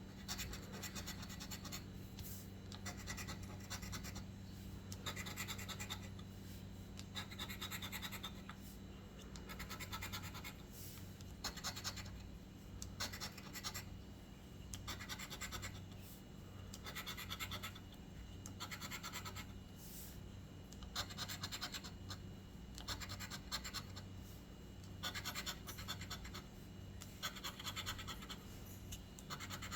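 Scratch-off lottery ticket being scratched, its coating scraped away in runs of short, quick strokes with brief pauses between them. A steady low hum sits underneath.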